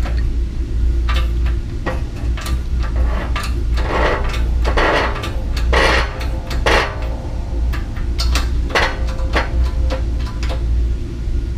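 Metal clinks, knocks and short scrapes as steel bearing parts are set on a differential carrier and a hydraulic shop press is worked by its handle to push a carrier bearing on, over a steady low hum.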